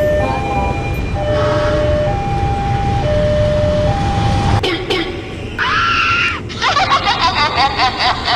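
Two-tone hi-lo siren switching between a low and a high note about every 0.8 s over a low rumble, cutting off abruptly about four and a half seconds in. It is followed by a short held tone and then a rapid warbling, chattering sound, about five pulses a second.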